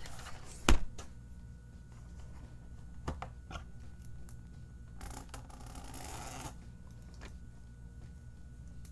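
Paper and a thin metal stencil being handled on a desk over a spiral art journal: a sharp knock about a second in, a few lighter clicks, and a scratchy paper rustle lasting about a second and a half past the middle.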